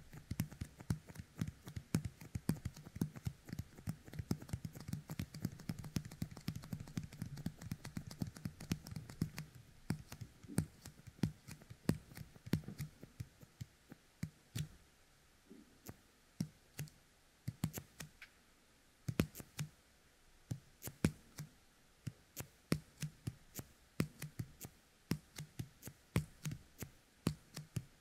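Fingertips coated with the sticky resin of a Yōkai Kemuri toy being pressed together and pulled apart right at a dummy-head microphone's ear: a quick run of small tacky clicks and crackles, several a second, busiest in the first third.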